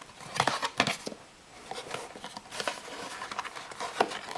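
Cardboard camera box being opened by hand and its paper inserts handled: scattered rustles, scrapes and light taps of card and paper, with a quieter stretch just over a second in.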